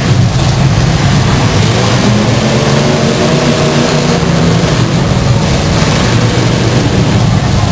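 Several demolition derby cars' engines running hard as the cars push and ram each other, a loud, steady roar. A few seconds in, one engine's revving stands out above the rest, then blends back in.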